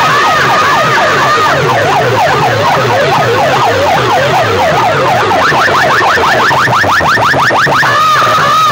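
Loud electronic siren effects played through a bank of horn loudspeakers: several overlapping tones sweep quickly up and down, several times a second. A warbling siren tone comes in near the end.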